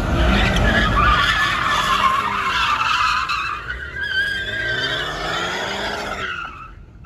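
A car spinning its tires: loud tire screech over an engine revving, its pitch rising several times, until it drops away near the end.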